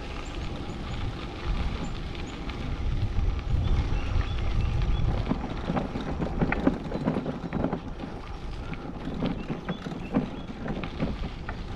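Wind buffeting the microphone of a bike-mounted camera over a steady low rumble, with bicycle tyres crackling on a crushed-gravel trail; the crackles come more often in the second half.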